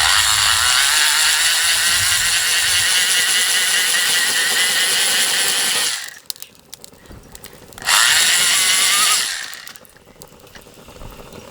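Cheap handheld BBQ blower's small fan motor running with a loud, high-pitched whine. It cuts off about six seconds in, then comes on again about two seconds later, rising in pitch as it spins up, runs for about a second and a half, and winds down.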